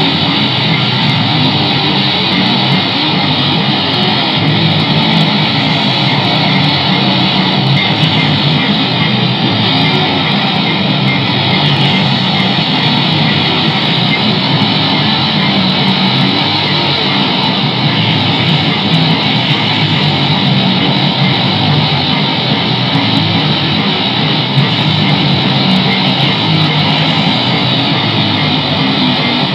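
Loud punk rock band recording with electric guitar and bass guitar playing without a break. The sound is dull, with its treble cut off.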